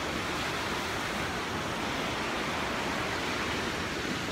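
Steady rushing of river rapids.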